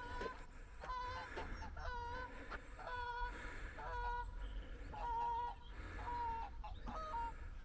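A small flock of geese in flight, honking over and over, about one call a second, some calls overlapping.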